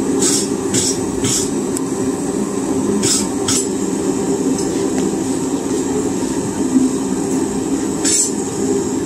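Steady roar of a blacksmith's forge running. Hammer blows on hot steel at the anvil come over it: three quick strikes at the start, two more about three seconds in, and one near the end.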